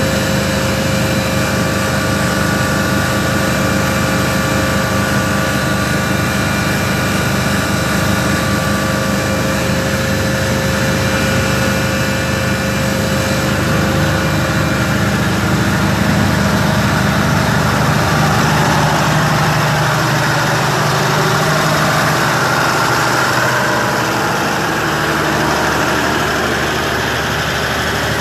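Hangzhou Fortune oxygen-generating plant machinery running with a loud, steady mechanical hum and several held tones. The mix of tones shifts about halfway through: some higher tones fade and a lower one comes in.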